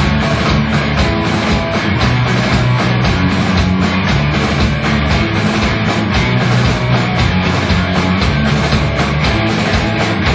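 Live rock band playing loud: electric guitars over a drum kit keeping a steady beat.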